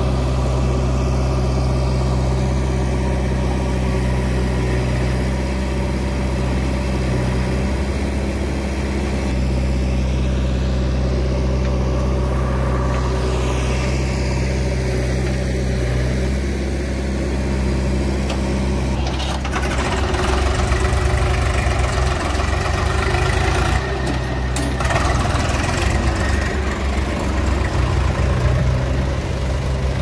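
Diesel engines of a JCB backhoe loader and a farm tractor running steadily at idle. About two-thirds of the way in, the running turns rougher and slightly louder.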